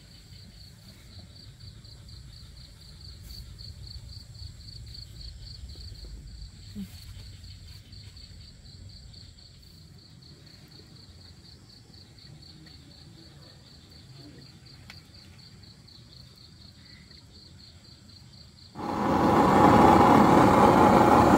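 Crickets chirping in a steady, fast-pulsing high trill over a low background rumble. Near the end a loud sizzle cuts in suddenly: flour-coated fish frying in hot oil.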